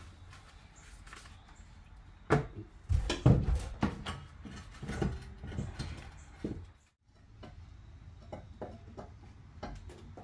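Irregular knocks and clunks of a BMW E46 strut assembly being manoeuvred up into its strut tower and lined up with the mounting holes, metal bumping against the car body. The sharpest knocks come two to three seconds in, followed by lighter clicks.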